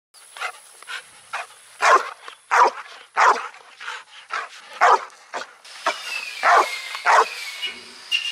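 Black dog barking over and over, about two sharp barks a second, impatient for its ball to be thrown.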